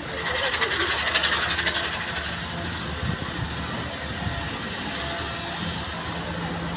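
Road traffic with a steady low engine hum, and a louder hissing rattle over the first two seconds or so.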